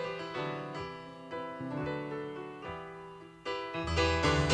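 Background piano music: a slow line of struck notes, growing louder with deeper bass notes near the end.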